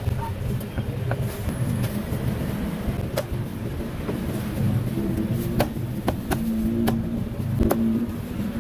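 Cleaver chopping through roast duck onto a thick wooden chopping block: a handful of sharp chops at irregular spacing, a second or two apart, over a steady low rumble.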